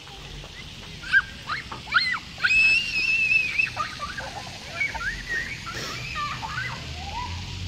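Young children shrieking and squealing as they run. There are short high yelps, then one long high scream about two and a half seconds in, followed by quieter, chirpy calls.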